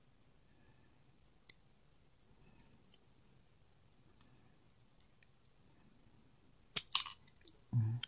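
Small metal clicks from the pins and parts of a disassembled pin-tumbler lock being handled and set down: one sharp click about a second and a half in, a few faint ticks, then a louder cluster of clicks and a knock near the end.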